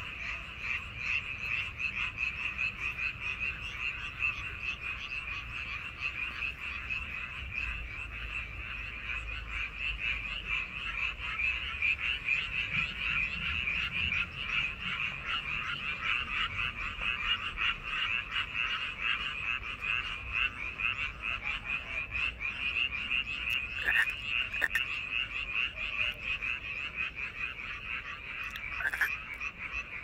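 A chorus of many frogs calling at once: an unbroken mass of fast, high-pitched pulsing calls overlapping one another.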